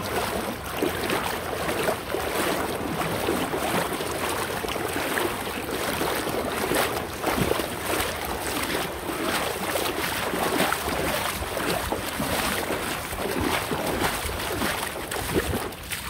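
Water splashing and rushing: many small splashes over a steady wash of moving water.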